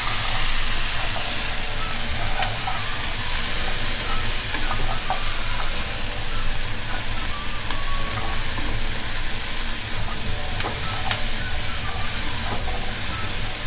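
Chopped cabbage, carrot and onion sizzling in a nonstick wok as they are stir-fried and turned with a spatula, with light scrapes and taps of the spatula against the pan. A steady low hum runs underneath.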